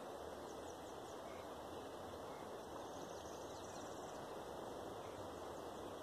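Steady outdoor background hiss with faint, high bird chirps, a short run about half a second in and another around three to four seconds in.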